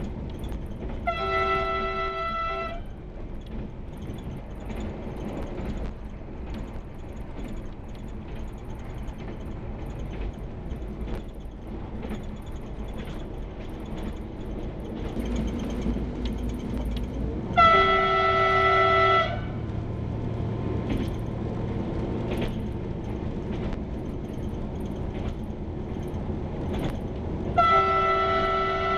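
Y2 diesel railcar's horn sounding three blasts, each about a second and a half long on a steady chord of tones: about a second in, past halfway, and again near the end. These are warning signals for unguarded level crossings. Between the blasts the train's steady running noise goes on.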